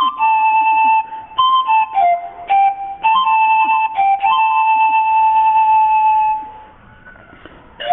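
Antara (Andean panpipe) playing a slow solo melody of separate held notes. Just past halfway comes one long held note, then a short pause before the melody resumes near the end.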